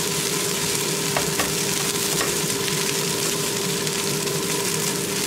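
Food sizzling steadily in a hot frying pan, with a couple of light utensil clicks about a second in and a faint steady hum underneath.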